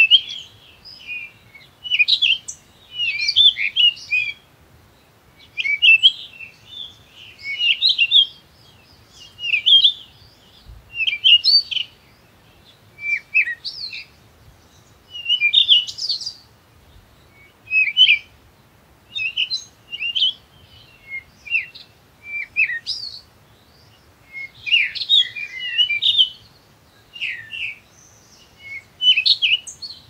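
A songbird singing in short phrases of quick, high twittering notes, a phrase about every two seconds.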